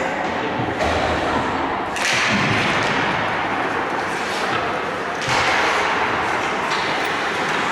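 Ice hockey play in an indoor rink: skates scraping and carving the ice in hissing strokes that start suddenly several times, with thuds of the puck and bodies against the boards and voices in the background.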